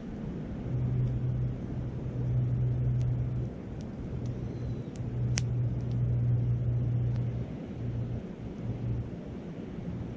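Wood fire crackling with a few sharp pops, over a loud low rumble of wind on the microphone and the steady rush of a flowing stream.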